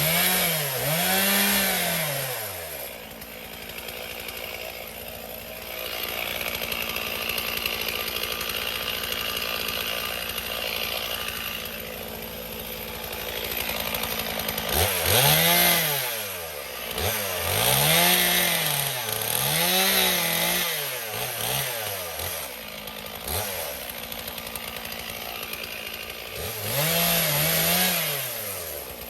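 Chainsaw cutting up a fallen branch, the engine revving up and falling back once at the start, three times in quick succession about halfway through, and once more near the end, with a long stretch of steadier, lower running between.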